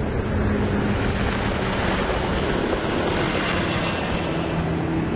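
Duramax 6.6 L V8 turbodiesel speedboat at full speed making a close pass-by: steady, loud engine note mixed with the rush of the hull and spray. Its tone drops slightly as it goes by.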